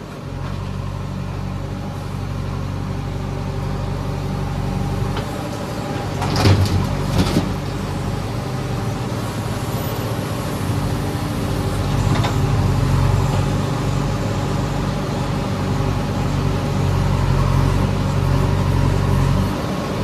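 JCB 3DX backhoe loader's diesel engine running under hydraulic load, swelling and easing as the backhoe digs and swings. A few sharp knocks of the bucket and soil come about six to seven seconds in and again around twelve seconds.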